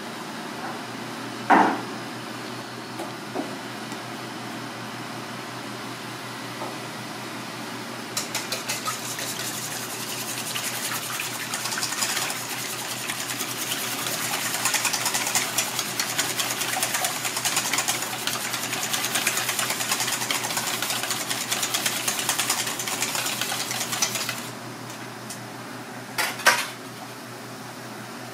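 Wire whisk beating eggs in a stainless steel bowl: rapid, steady clinking of the wires against the metal for about sixteen seconds, starting about eight seconds in. A single metal clink comes about a second and a half in, and a short metal clatter near the end, over a steady background hum.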